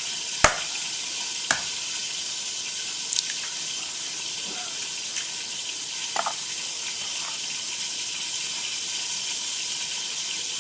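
An egg being cracked on the rim of a mixing bowl: one sharp knock about half a second in and a lighter one a second later, then a few faint clicks, over a steady hiss.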